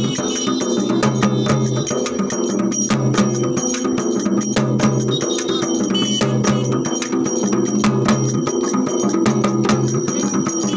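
Loud festival music driven by rapid, continuous hand-beaten barrel drums (dhol), with bells ringing over it.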